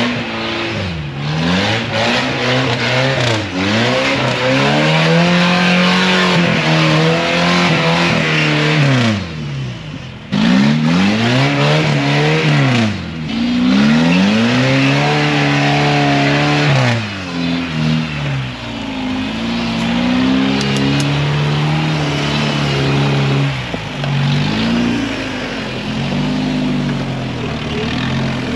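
A 4x4's engine being revved up and down again and again, its pitch rising and falling with each burst of throttle, typical of working a vehicle over an off-road obstacle.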